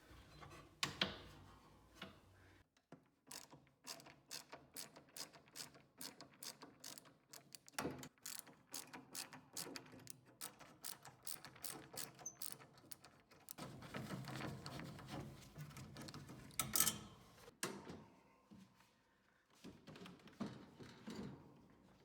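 A metal ratcheting mechanism clicking in a long, fast, even run of sharp clicks, then a rougher grinding, rubbing stretch ending in one loud knock.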